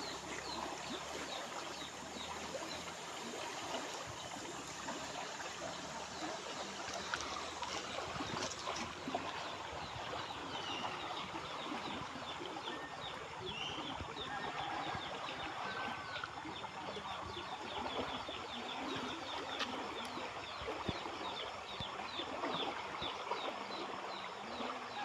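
Clear stream water flowing and trickling steadily, with small birds chirping throughout.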